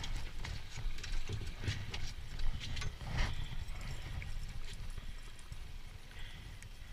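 Irregular knocks and taps as a hooked fish is hauled up by hand and lifted in over the boat's side, over a low rumble of wind and water.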